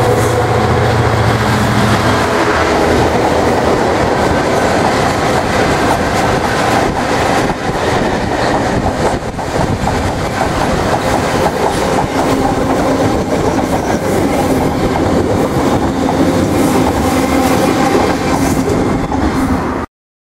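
Class 66 diesel locomotive's engine passing close by at the start, then a long rake of loaded open box wagons rolling past with a steady rumble and clickety-clack. The sound cuts off abruptly near the end.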